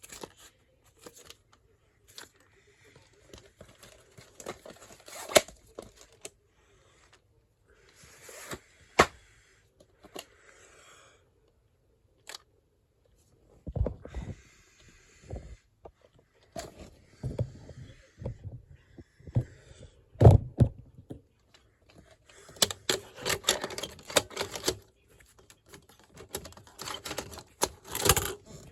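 The strange noise at the start of a VHS tape: irregular clicks, scrapes and short rustling noises, with a few dull thumps midway and a denser stretch of crackling near the end.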